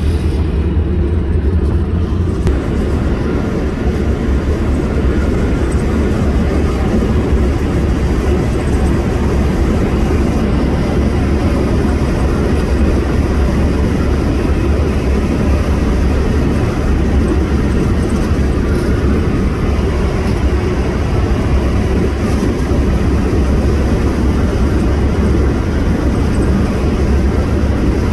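Steady low rumble of a car driving along a highway, heard from inside the moving car.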